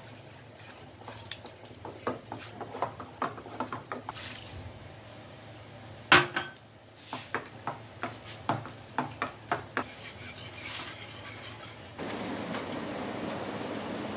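A spatula stirring and scraping a thick white sauce in an aluminium saucepan, with many quick knocks of the utensil against the pot and one sharp clack about six seconds in. For the last two seconds a steady hiss takes over.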